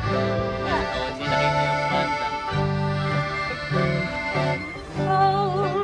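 Background music: an accordion playing sustained chords and melody over a pulsing bass line.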